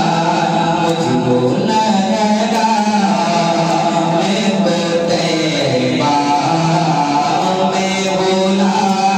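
A man singing an Urdu devotional naat into a handheld microphone, in long held, ornamented melodic lines.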